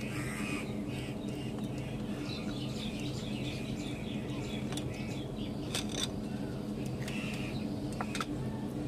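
Birds chirping outdoors over a steady low hum, with a few sharp clicks about six and eight seconds in.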